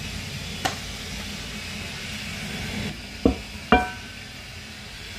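Metal parts being handled and knocked together: a light click, then two sharp knocks about half a second apart, the second ringing briefly like struck metal, over a steady low rumble.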